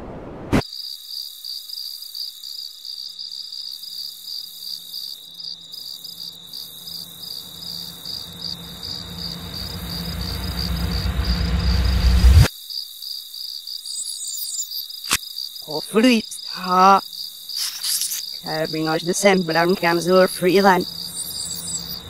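Effects-processed cartoon soundtrack. A steady, high cricket-like chirring runs throughout. A low rumble swells and cuts off suddenly about halfway through, and warbling, pitch-shifted voice-like sounds come in over the last several seconds.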